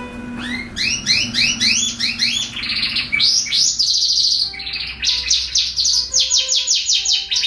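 Domestic canary singing: a run of rising, arched notes repeated about three times a second, then a buzzy roll and fast repeated trills.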